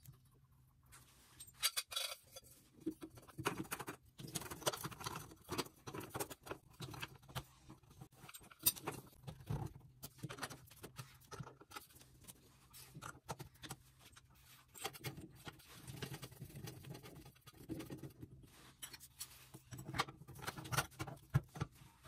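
Irregular clicks, taps and short scrapes of metal shower-valve trim parts (the escutcheon plate and handle) being handled and pushed onto the valve stems by hand, over a faint steady low hum.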